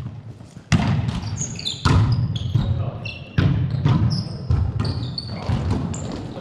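Volleyball being struck during play, several sharp slaps of the ball that echo through a gym. Sneakers squeak briefly on the hardwood court in between.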